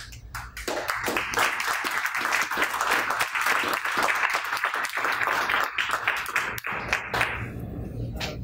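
Audience applauding: a dense patter of many hands clapping that starts about half a second in and dies away after about seven seconds.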